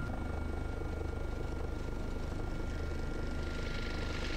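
Helicopter cockpit noise during a slow descent on short final: a steady low drone with a thin, constant high whine above it.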